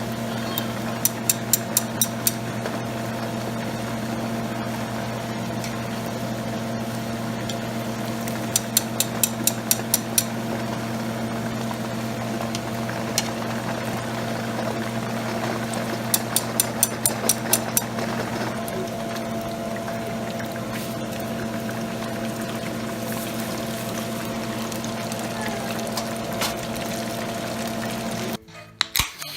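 Chicken gizzards deep-frying in hot oil: a steady sizzling hiss over the even hum of a kitchen fan. Three short runs of quick clicks, about four a second, come early, in the middle and about two-thirds through, and the sound cuts off suddenly near the end.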